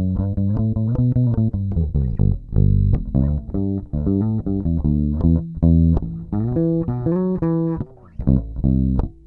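Warwick Rockbass Streamer Standard five-string electric bass played fingerstyle through its neck pickup alone: a run of quick plucked notes. A few higher notes ring out about two-thirds of the way through, followed by a short gap.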